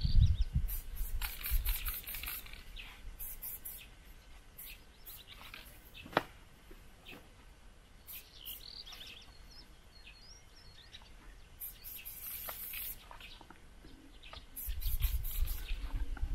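Aerosol spray-paint can hissing in short bursts, several times, with birds chirping. A low rumble rises near the start and again near the end.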